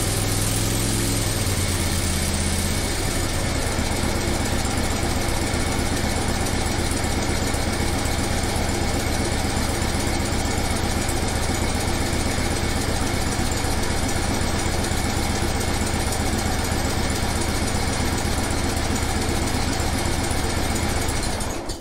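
Toro Wheel Horse 267HE ride-on mower's V-twin four-stroke engine running steadily through a new exhaust system. Its note changes about three seconds in, and it cuts off right at the end.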